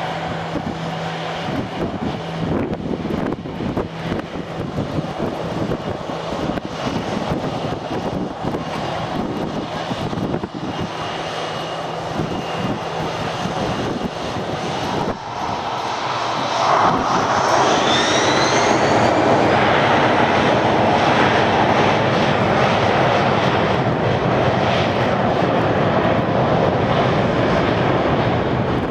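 The four CFM56 turbofans of an Airbus A340-300 running steadily at taxi power. About two-thirds of the way through they spool up with a rising whine and a louder, held rush as takeoff thrust is set for the takeoff roll.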